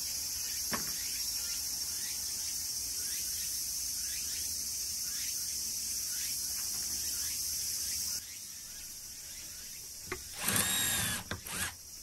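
Steady high-pitched insect buzzing that cuts off abruptly about eight seconds in. Near the end comes a brief, louder pitched sound.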